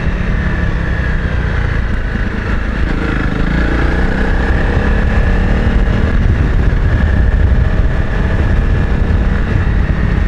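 Honda CRF250 Rally's single-cylinder four-stroke engine pulling under throttle while riding, heard through a helmet-mounted camera. The sound is steady and gets a little louder after the middle.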